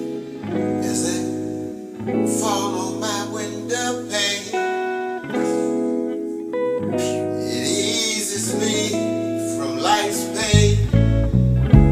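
Instrumental gospel music: guitar and keyboard chords over a bass line, with the bass and drums getting heavier near the end.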